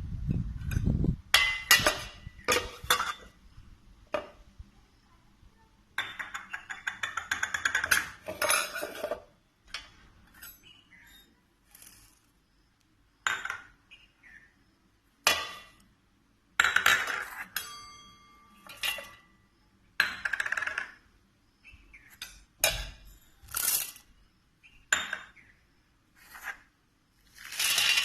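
Kitchen utensils and bowls clinking and knocking against a mixer-grinder jar as chutney ingredients are tipped in, in scattered short bursts with a few seconds of continuous rattling about a quarter of the way through.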